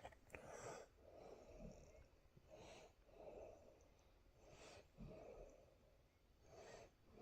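Faint, steady breathing of a person close to the microphone, with soft in-and-out breaths repeating about every two seconds.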